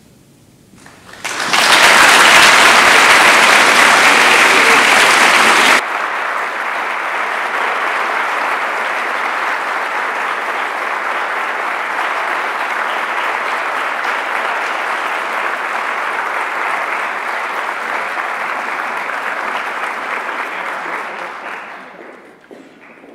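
Audience applauding, starting about a second in. The clapping is loud at first, drops suddenly in level about six seconds in, then carries on steadily and dies away near the end.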